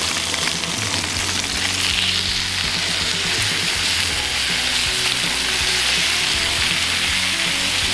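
Sirloin steaks searing in hot avocado oil in a cast iron skillet, giving a steady sizzle as they are turned over with metal tongs.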